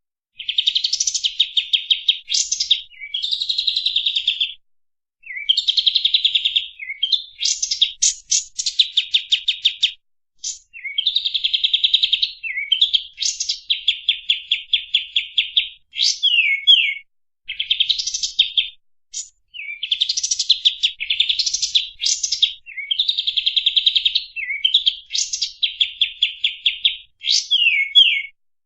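Kapas tembak bulbul singing its rapid-fire 'tembak' song: high, clear runs of very fast repeated notes, each run lasting a second or two, separated by short pauses and quick downslurred notes.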